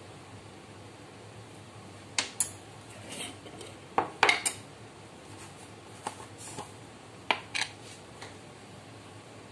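Small spice bowls and dishes clinking and knocking as they are handled and set down on the countertop: a scatter of sharp clinks, loudest about four seconds in, over a faint steady hiss.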